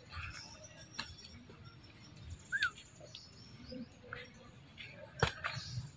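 Faint rustling and scattered clicks in dry leaf litter as a baby macaque walks over it, with one short squeak a little past the middle. A single sharp click about five seconds in is the loudest sound.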